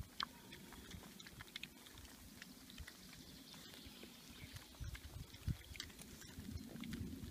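Wild boar piglets rooting for food in dry, stony dirt: faint scattered clicks and rustles of snouts pushing through soil and pebbles, with low pig sounds. The low sounds grow a little louder in the second half.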